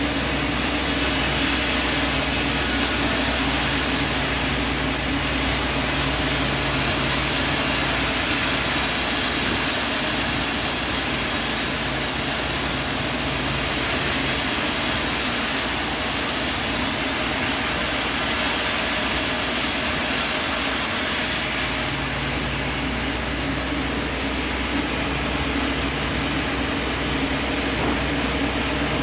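Band sawmill running with a steady machine drone and hiss. A louder, higher hiss present from the start stops abruptly about three-quarters of the way through, and the drone carries on.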